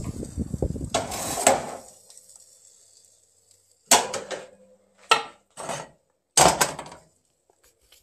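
Background noise fades out over the first two seconds. After a short lull come four sharp clattering knocks, each dying away quickly, spread over about two and a half seconds.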